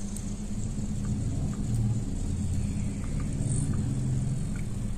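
Steady low rumbling hum, a little louder about two seconds in, with a few faint ticks.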